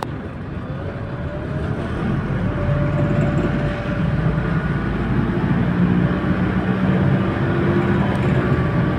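Bus engine and drivetrain running while the bus drives, heard from inside the cabin. A whine climbs in pitch over the first two seconds or so as the bus picks up speed, then holds steady while the overall sound gets louder.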